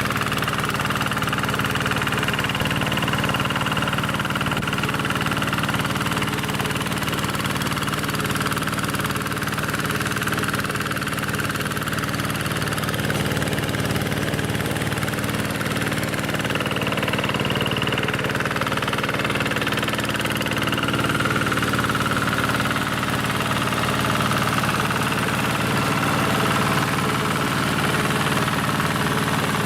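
Small engine of a walk-behind tractor running steadily at an even speed.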